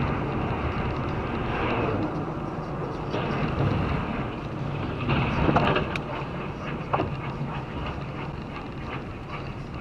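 Steady road and engine noise heard inside a moving car's cabin, with a low hum underneath, on a wet, slushy road. A couple of brief sharper sounds come about five and a half and seven seconds in.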